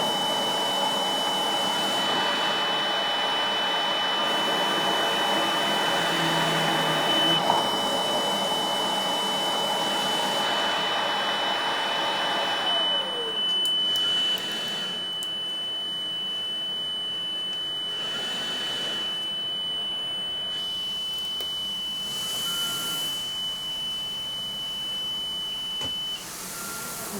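Mechanical cough assist machine working through a tracheostomy: a steady rush of air that swells and eases every few seconds, under a continuous high-pitched tone that stops shortly before the end.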